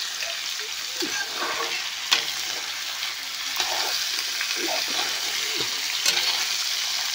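Diced potatoes sizzling in oil in a kadai, stirred with a slotted spoon that scrapes and clicks against the pan a couple of times.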